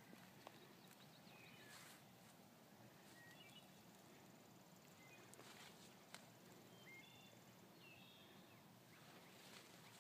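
Near silence with faint, scattered chirps of small birds and a few soft rustles of leaves.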